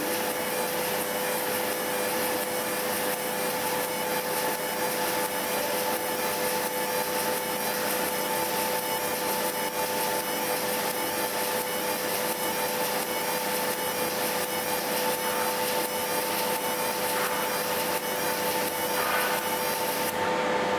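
Fiber laser marking machine deep-engraving a copper plate: a steady hiss of the beam working the metal, with two steady tones running underneath.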